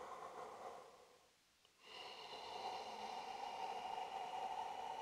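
A person's slow, audible yoga breathing: one breath fading out about a second in, a short pause, then a long, even breath beginning about two seconds in.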